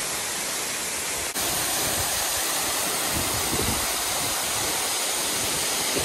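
Loud, steady rush of a waterfall heard from right beside where it falls. About a second in, the rush jumps slightly louder and brighter.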